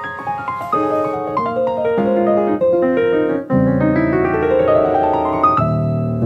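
Background piano music: single notes and chords, then a quick rising run of notes about three and a half seconds in, ending on a low held chord near the end.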